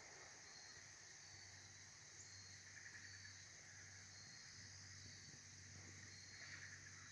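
Faint insect chorus, near silence: a steady high hiss with a short chirp repeating about once a second, over a low steady hum.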